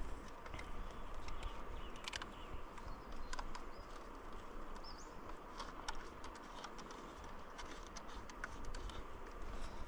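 Faint scattered clicks and taps of a Metolius stick clip and climbing gear being handled and fitted together, over quiet outdoor ambience, with a brief bird chirp about five seconds in.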